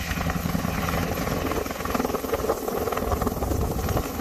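Helicopter running on the ground, its rotor blades turning with a fast, steady beat over the rumble and whine of the turbine engines.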